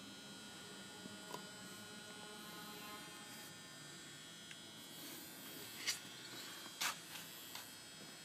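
Steady electrical hum and buzz from the machine beside a Bijur oil lubricator, with a few light clicks and two louder sharp clicks about six and seven seconds in.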